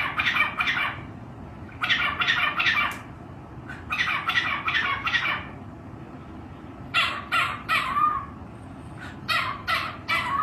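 Pet parrot squawking in harsh, raspy bursts of about a second each, five bouts roughly every two seconds.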